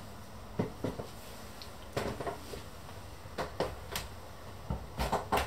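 Footsteps and light handling knocks: about a dozen soft, irregular thumps over a low, steady room background.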